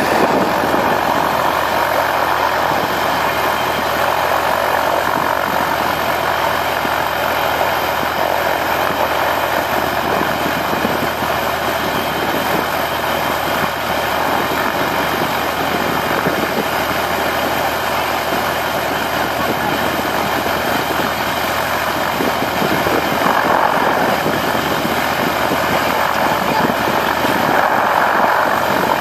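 Light helicopter on the ground, engine idling with the rotor turning, a steady unbroken drone while it waits for passengers.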